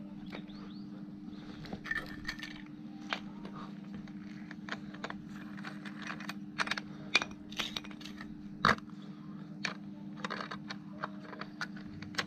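Light metallic clinks and taps, scattered irregularly, as small steel parts and hand tools are handled and knocked together, over a steady low hum.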